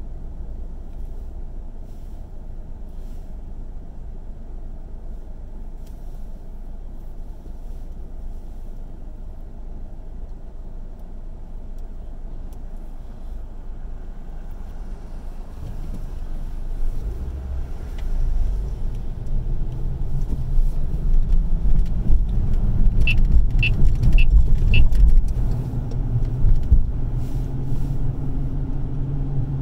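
Car interior noise: a low, steady rumble of the engine idling at a standstill, then about halfway through the car pulls away and the engine and road rumble grow louder as it accelerates. Four short high beeps sound a little past two-thirds of the way through.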